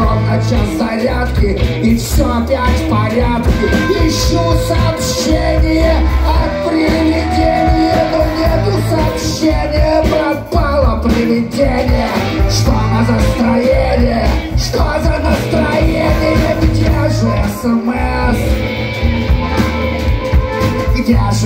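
A live rock band playing an instrumental break: drums, bass and electric guitars with a harmonica wailing over them, and a tambourine.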